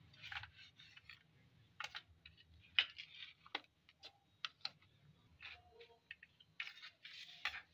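Metal knife scraping and clicking against a steel baking tray as firm pieces of egg halwa are prised out and lifted, with light taps as pieces are set down on a ceramic plate. Irregular short clicks and scrapes, a few sharper ones near the middle.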